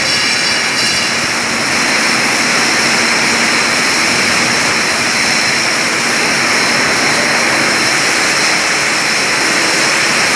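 Loud, steady machinery noise of a juice bottling line: a constant roar with a few high, steady whining tones on top.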